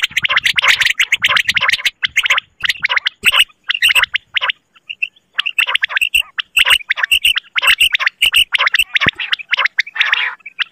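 Recorded common quail calls played as a hunting lure: a rapid, rattling chatter in bursts, with a brief pause about halfway through.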